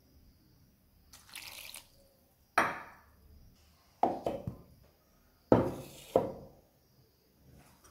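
Water poured from a small steel bowl into a steel mixer-grinder jar of coarsely ground rice, with a short splash and several sharp clinks and knocks of steel utensils against the jar.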